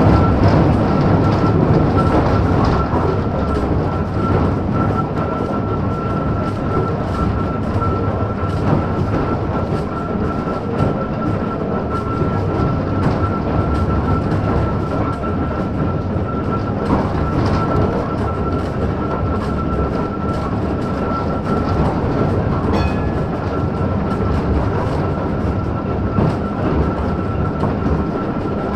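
1915 Ringhoffer tramcar running at steady speed, heard from inside the car: wheels rumbling and clicking over the rails with a steady high whine throughout. A brief high squeal about 23 seconds in.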